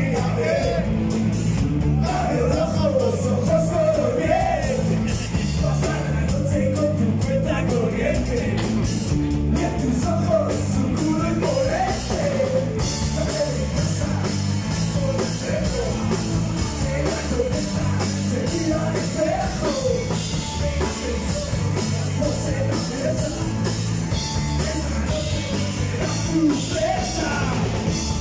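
Live rock band playing a song: electric bass, electric guitar and drum kit, with a singer's voice over the band.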